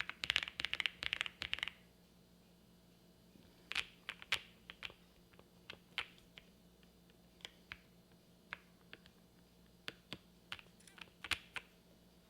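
Typing on a custom mechanical keyboard with lubed Holy Boba tactile switches on a polycarbonate plate with no case foam, a 'thock-pop' sound. A fast burst of keystrokes for under two seconds stops, and after a pause come single, spaced key presses.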